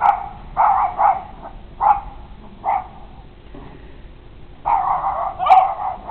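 Short, bark-like animal calls: a run of about five separate calls in the first three seconds, then a longer, louder cluster of them near the end.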